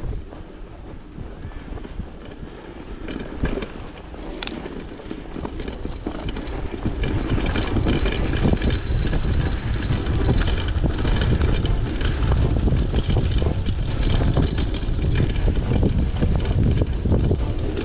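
Wind rumbling on the microphone of a moving bicycle, with scattered small clicks and rattles from the bike as it rolls along. The wind rumble grows much stronger about seven seconds in and stays loud.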